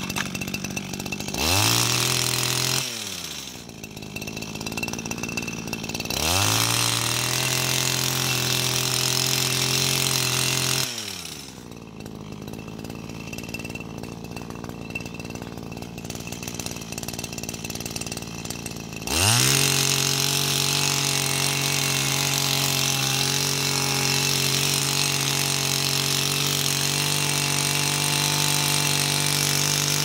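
Small petrol engine of a handheld pruning tool trimming a sculpted pine. It revs up briefly about a second in and drops back, then revs for about five seconds. It idles for about eight seconds, then revs up again and stays at full throttle to the end.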